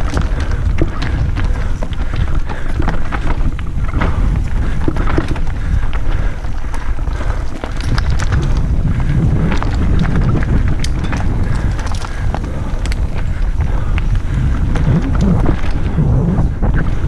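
Mountain bike descending a loose stony forest trail at speed: wind buffeting the microphone as a steady low rumble, with tyres crunching over gravel and the bike rattling in many short clicks and knocks.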